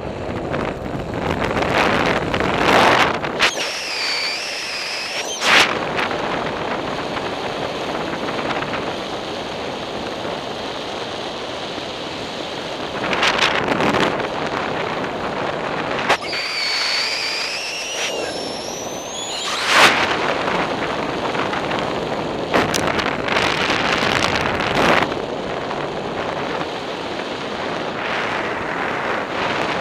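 Wind rushing over the microphone during an unpowered paraglider flight, with no engine running; a steady rushing noise. Twice a wavering high whistle comes in for a few seconds, each time ending in a short knock.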